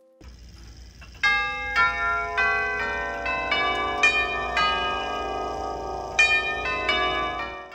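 Tubular chime bells of a 1910 Bawo & Dotter grandfather clock playing a chime melody. Struck notes come about two a second, each ringing on under the next, with a short pause between phrases near the end.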